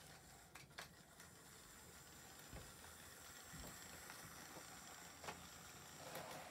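Near silence: the Hornby Santa's Express toy train running on its track, heard as faint hiss with a few light clicks. Near the end comes a brief louder rush of motor and wheel noise as the train passes close by.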